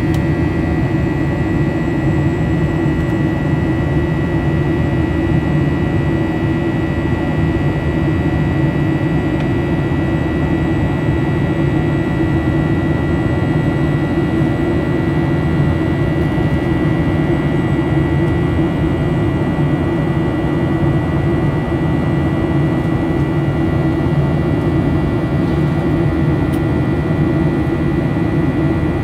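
Steady roar inside the cabin of a Boeing 737-800, climbing after takeoff, with its CFM56-7B turbofan engines running. A thin, steady high whine sits over the low rumble.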